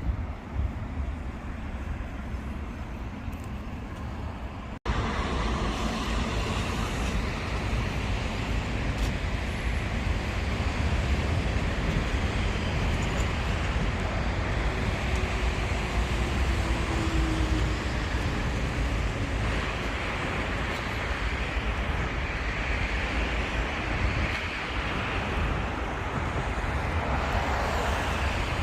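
Steady road traffic noise, a continuous rumble and hiss with no distinct events. It cuts out for an instant about five seconds in and comes back a little louder.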